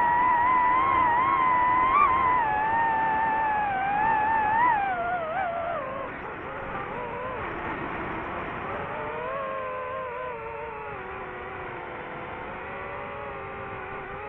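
DJI FPV drone's motors and propellers whining, the pitch wavering with the throttle. About six seconds in the whine drops and quietens, then holds at a lower pitch.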